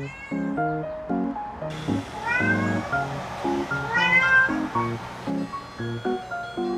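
A domestic tabby cat meowing to be let in at a closed sliding glass door. There is a short meow at the start, then two longer meows about two and four seconds in, each rising then falling in pitch. Light background music with plucked notes plays throughout.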